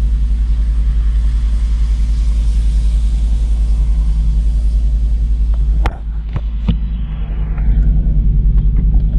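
2002 Volvo V70's 2.4-litre five-cylinder engine running with a steady low rumble, just after its first start following a thermostat replacement. About six seconds in a sharp click and a few knocks come as the sound briefly drops, then the rumble builds back up.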